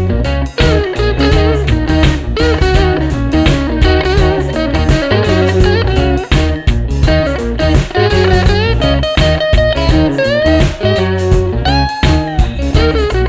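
Background music led by guitar, with bending notes over a steady bass beat.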